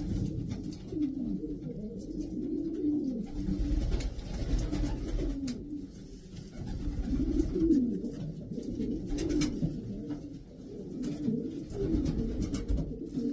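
Racing pigeons cooing: a run of overlapping low coos, each one rising and falling in pitch, repeated over and over.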